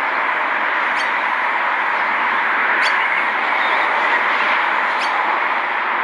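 A steady, fairly loud hiss with a few faint sharp clicks spaced a second or two apart.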